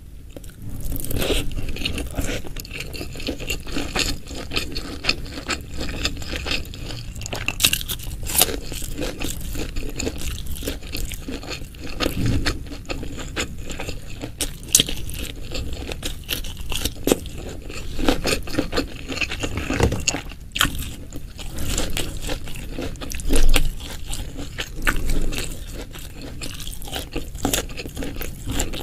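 Close-miked eating sounds: a person chewing and biting crunchy food, with irregular sharp crunches and some scraping, one crunch louder about two-thirds of the way in.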